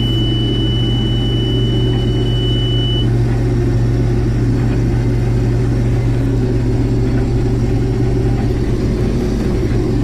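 Combine harvester running steadily under load as heard from inside its cab, a deep even hum with machinery rumble, while it picks up a swath. A thin, steady high-pitched tone sounds over it and stops about three seconds in.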